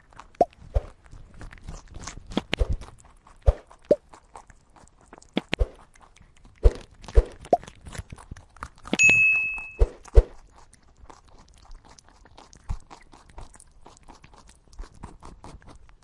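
A rabbit chewing grass close to the microphone: irregular crisp crunching bites and snips. A little past the middle, a brief high steady tone sounds once.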